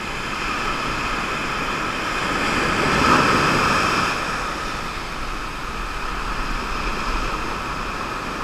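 Ocean surf washing up the beach: small waves breaking and foaming over the sand, swelling to a peak about three seconds in and then easing back.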